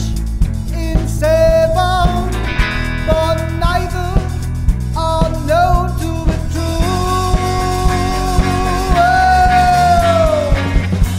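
Psychedelic rock band music: drums and bass under a bending lead melody. Near the end the lead holds one long note that sags in pitch and fades out.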